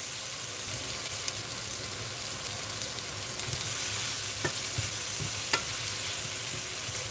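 Broccoli and potatoes sizzling in hot oil in a stainless steel frying pan as they are stirred with a wooden spatula, with a few light knocks of the spatula against the pan.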